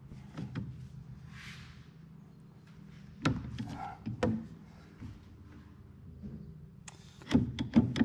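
Scattered metal knocks and clicks from hand work on a baler knotter as a part is bent and adjusted to clear the bill hook, with a quick run of knocks near the end. A steady low hum runs beneath.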